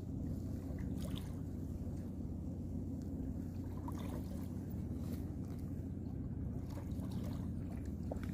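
A steady low engine hum with a few faint, brief clicks over it.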